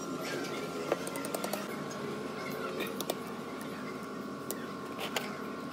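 A steady machine hum with a few light clicks and taps scattered through it, about a second in, around one and a half seconds, three seconds and five seconds in.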